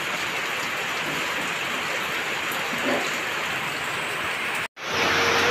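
A steady, even hiss that drops out abruptly for a moment near the end. After the dropout a louder hiss and a wavering musical tone begin.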